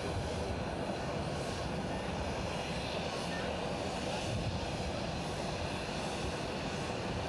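Jet engines of a four-engine airliner on approach, a steady, even noise that does not change.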